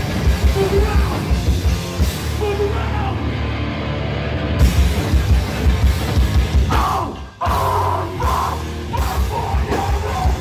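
A live hardcore band playing loud: distorted electric guitars, bass and a drum kit. About two-thirds of the way through there is a brief break, and shouted vocals come in over the band.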